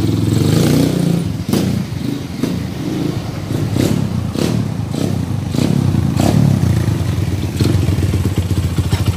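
Kawasaki KLX single-cylinder engine running in gear on a short test ride, its pitch rising and falling with the throttle, with several sharp knocks along the way. The whine it used to make in gear has been repaired.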